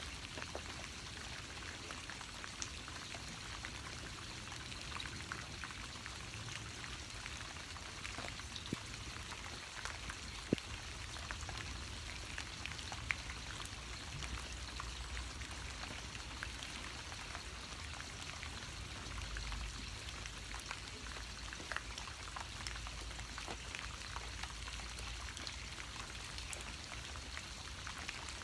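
Steady rain, with many individual drops ticking on a surface.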